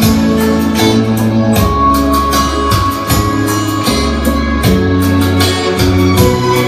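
Karaoke backing track of a Vietnamese ballad playing loudly: guitar and string melody over bass and a steady beat, with no one singing.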